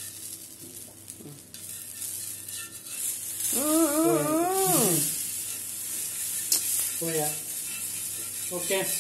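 Rice-flour batter sizzling on a hot tawa while a steel spatula scrapes and pushes the crumbled dosa around. A person's drawn-out, wavering voice sound about three and a half seconds in is the loudest thing, with shorter voice sounds near the end.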